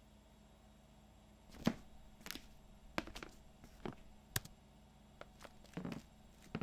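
Quiet footsteps followed by a few scattered clicks and taps of small objects being handled on a desk, about half a dozen short sounds in all, the sharpest about a second and a half in, over a faint steady room hum.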